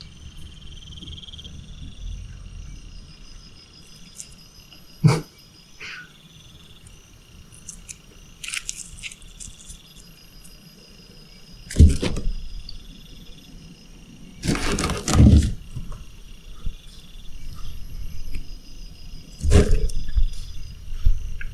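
Steady, high, pulsing insect chirping, broken four times by sudden loud thumps and scuffs, the longest a scuffle of about a second in the middle.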